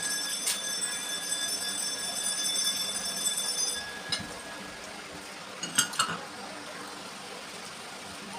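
Metal dishware clinking, with a high ring that lingers and fades out about four seconds in, then a few more light clinks about four and six seconds in.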